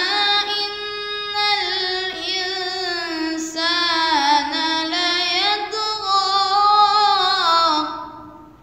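A boy's voice reciting the Quran in melodic tajwid style, drawing out one long ornamented phrase that wavers up and down in pitch and fades out near the end.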